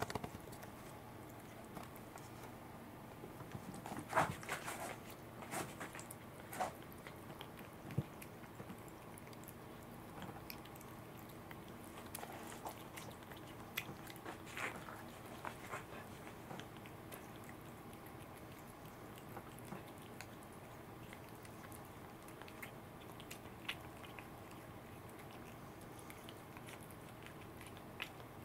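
A Welsh corgi and a black cat eating pieces of raw salmon from a hand: scattered short wet chewing, smacking and licking sounds, busiest about four to eight seconds in and again around twelve to fifteen seconds in.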